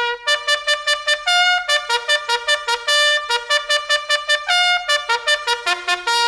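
Bugle call played over a Federal Signal Modulator outdoor loudspeaker system. It runs as quick tongued notes on a few bugle pitches, broken about every second and a half by a short held note.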